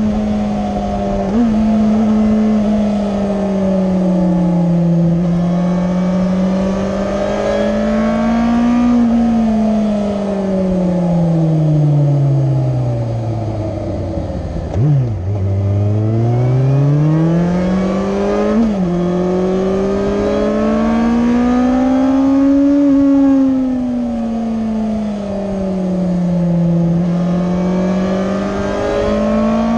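Yamaha FZS1000 Fazer's inline-four engine under way, its pitch rising and falling with the throttle, dropping lowest about halfway through before climbing again, with wind rush in the background.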